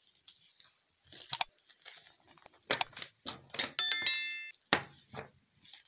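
A short bell-like notification chime rings for about half a second, about four seconds in. A few sharp clicks come before and after it, with faint rustling of paper being handled.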